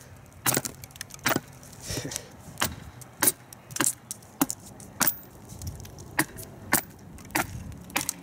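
TOPS Bushcrafter Kukuri 7 kukri knife cutting down the side of a standing branch in short, sharp strokes, shaving wood off it, a little under two cuts a second.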